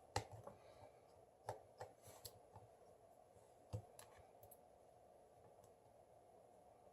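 A handful of faint, sharp clicks and taps from small tools and parts being handled during smartphone disassembly, spread over the first four seconds, over a faint steady hum.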